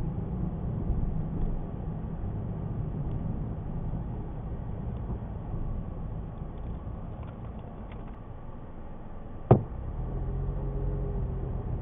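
Car engine and road noise heard through a dashcam, a steady low rumble. One sharp knock sounds near the end, after which the engine hum steadies.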